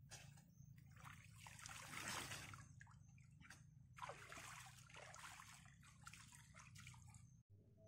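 Water sloshing and trickling in irregular bursts, cutting off suddenly near the end.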